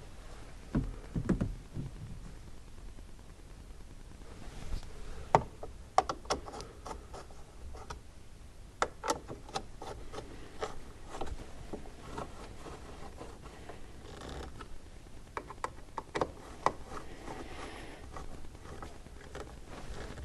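Scattered clicks, light knocks and scrapes of a 3D-printed plastic steering column cover and its fittings being handled and refitted to the steering column.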